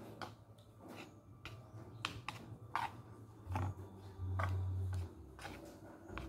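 Chopsticks clicking and scraping irregularly against a metal pot while instant noodles are mixed with their sauce. A low hum swells twice near the middle and is the loudest sound.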